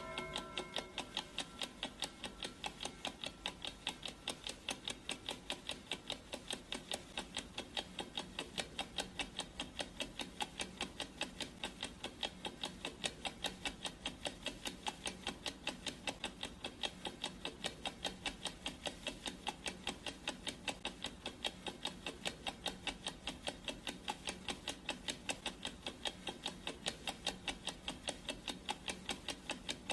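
Clock ticking sound effect: rapid, perfectly even ticks that run steadily without change. The last of a ringing tone fades out in the first second.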